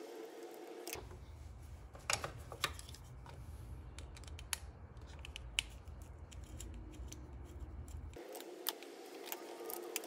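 Small scattered clicks and taps as a flat-head screwdriver works the brass terminal screws of a replacement bandsaw power switch and wires are fitted onto it. A low steady rumble runs underneath from about a second in until about eight seconds.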